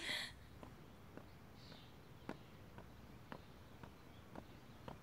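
Faint footsteps of hard-soled shoes on pavement, about two steps a second, as a man walks up to a car.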